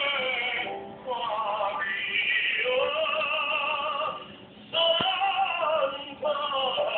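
Music with a singing voice holding long notes that slide from pitch to pitch, with short breaks between phrases about a second in, past the middle and near the end.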